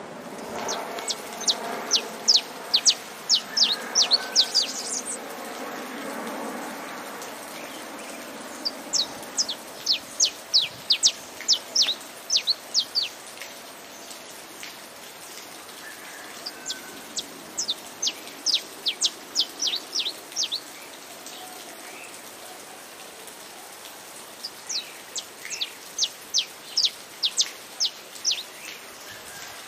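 Saffron finch (canário-da-terra) singing in four bursts of rapid, high, down-slurred notes separated by short pauses, over a steady rain-like hiss.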